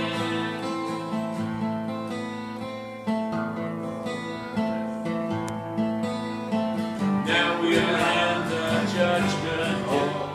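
Acoustic guitars strumming chords in an instrumental break between sung verses, with the playing getting fuller about seven seconds in.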